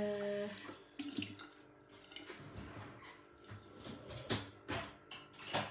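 Water sounds at a kitchen counter, with several short, light knocks of kitchenware along the way.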